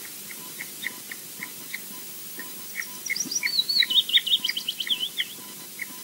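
Osprey chick's faint begging peeps from under the brooding adult, short and even at about three a second. About three seconds in, a louder run of high chirps and a falling, warbling whistle lasts about two seconds.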